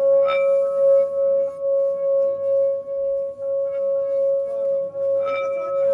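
Tibetan singing bowl holding a little water, rubbed around its rim with a wooden mallet so that it sings one steady, pure tone that swells and fades gently as the mallet circles. The mallet clinks against the rim twice, once near the start and once near the end, adding a brief brighter ring.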